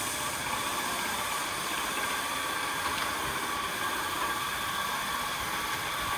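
Paint sprayer running: a steady hiss with a faint motor hum underneath.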